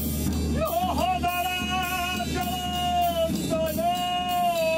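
Live music on a bowed homemade wooden string instrument with drums. A long held note wavers, dips and bends briefly about a second in, over steady drum and cymbal strokes.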